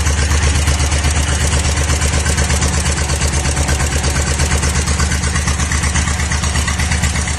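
1960 John Deere bulldozer's two-cylinder engine idling with an even, rapid pulsing beat, warming up after its first start.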